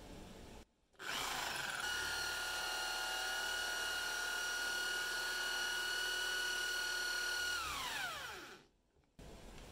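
Electric drill with a spade bit boring through wood. The motor spins up about a second in and runs with a steady whine while the bit cuts. Near the end it winds down with a falling pitch as the trigger is released.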